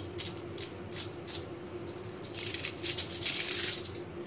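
Aluminium foil lining a baking tray crinkling and crackling under hands handling puff pastry squares, in quick irregular crackles that grow busiest about three seconds in. A faint steady hum runs underneath.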